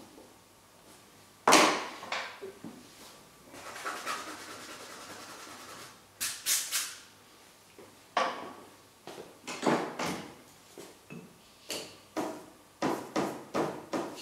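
Painting tools knocking and clicking against a work table and palette as they are picked up and set down, the loudest knock about a second and a half in, with a few seconds of scratchy rubbing in the middle and a run of quick clicks toward the end.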